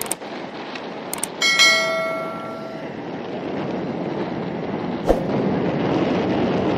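Subscribe-button animation sound effect: mouse clicks, then a bell chime about a second and a half in that rings for about a second and fades, with another click around five seconds in. Underneath, steady wind and sea noise.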